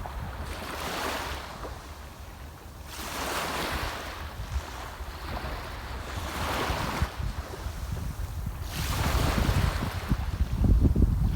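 Sea waves washing onto the shore in regular surges about every three seconds, each swelling and fading. Wind buffets the microphone underneath, heaviest near the end.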